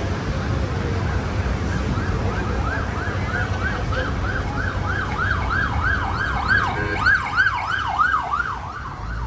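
Ambulance siren in a fast yelp, about three rising-and-falling sweeps a second. It grows louder, is loudest near the end, then fades as it passes. Under it runs the steady low rumble of road traffic and the bus.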